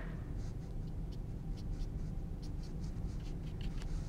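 Paintbrush strokes on canvas: short, light brushing scratches, several a second and irregular, as acrylic paint is flicked on in quick little strokes. A steady low hum lies underneath.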